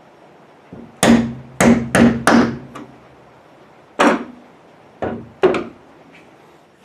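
Mallet strikes driving a trim clip down onto its post on a car's rear window flange: four quick taps, then three more spaced out, each with a short metallic ring.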